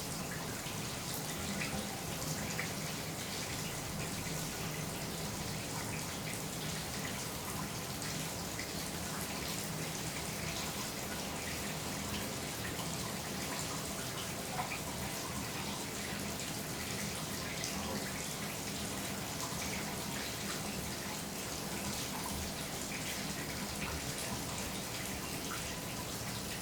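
Shower running steadily in a small bathroom: a constant hiss of spray with many small splashes and drips of water hitting the surfaces.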